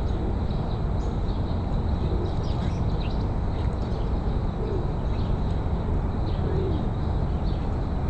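Steady low outdoor background rumble, with a couple of faint short low calls from feral pigeons cooing, about halfway through and again near the end.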